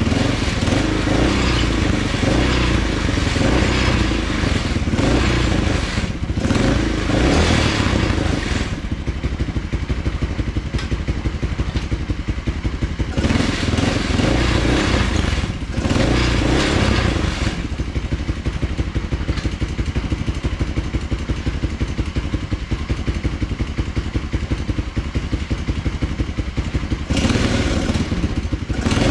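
Tao Motors Mudhawk 200 ATV engine running under way, revving up and easing off in waves every few seconds.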